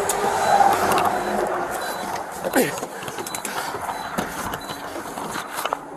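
Close rustling and scuffling of clothing against a body camera as an unconscious man is hauled across a truck cab's seats, with irregular knocks and clicks. A brief falling-pitched vocal sound comes about two and a half seconds in.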